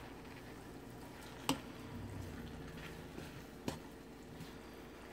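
Fried rice sizzling faintly in a hot nonstick wok while being stirred, with a wooden spatula knocking against the pan twice, about a second and a half in and again near four seconds.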